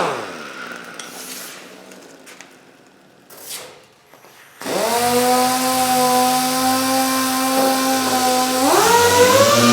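3M 28502 air-powered random orbital (DA) sander winding down to a stop with a falling whine. After a few seconds of quiet it starts up again suddenly, runs steadily, and steps up to a higher speed near the end, showing its variable speed control.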